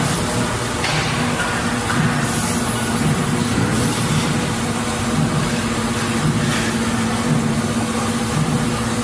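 Factory machinery running: a steady hum with a low pulse repeating a little faster than once a second.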